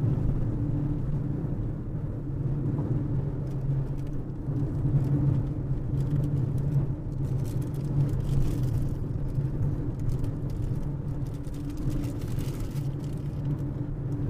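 Car driving at highway speed, heard from inside the cabin: a steady low rumble of engine and tyres on the road.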